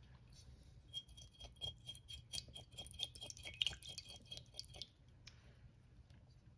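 Metal spoon scraping the scales off a sunfish held under water in a bowl: quick scratchy strokes, several a second, that stop about five seconds in.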